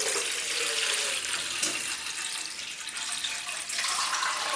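Water poured in a steady stream from a plastic bottle into the base of a metal idli steamer pot, splashing onto the water already in it.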